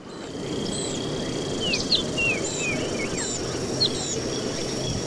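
Outdoor ambience of birds chirping, many short whistled calls that rise or fall, over a steady rushing background and a thin high steady whine, fading in at the start.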